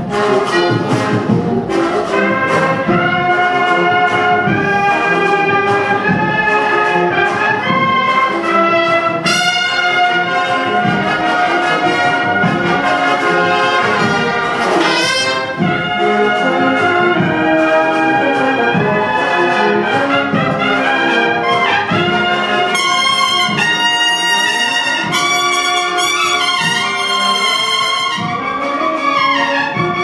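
A Spanish cornetas y tambores band (valveless bugles and drums) playing a processional march live: full sustained bugle chords over drum strokes, with rising swells about ten and fifteen seconds in and a falling run near the end.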